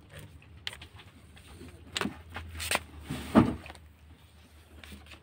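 Newspaper rustling and dry kibble scattering as a hand spreads cat food, in a few short bursts. The loudest comes about three and a half seconds in.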